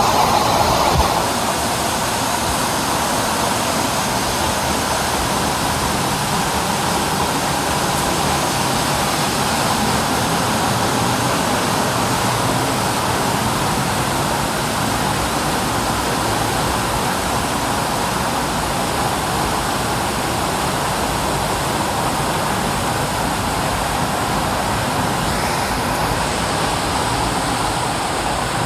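A waterfall's rushing water, a loud, steady roar of falling water.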